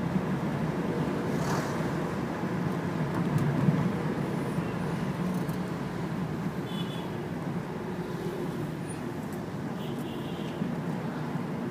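Steady engine and road noise of a Dacia taxi driving in city traffic, heard from inside the cabin.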